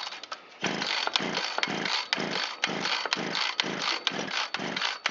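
Shindaiwa T272X two-stroke trimmer engine being cranked over for a compression test, a quick even rhythm of about three strokes a second. It turns over freely with no compression, the sign of a failed piston after a partial seizure.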